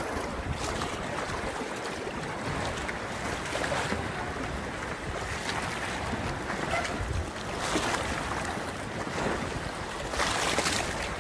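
Wind buffeting the microphone over the sound of sea water lapping, a steady rushing noise with two stronger gusts near the end.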